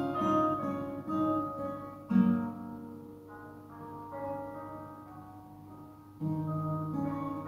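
Steel-string acoustic guitar with a capo, fingerpicked as an arpeggio of chord notes over a bass note. The notes ring out and fade in the middle, and the picking picks up again, louder, about six seconds in.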